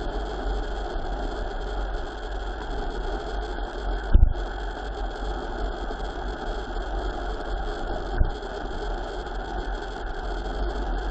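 Steady wind rush and low rumble on the microphone of a camera riding on a mountain bike descending at speed. Two low thumps break through, the louder one about four seconds in and a smaller one about eight seconds in.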